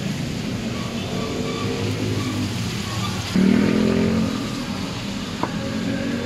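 Motor vehicle engines passing on the street, one rising in pitch as it speeds up and another running louder about three and a half seconds in, with a sharp click near the end.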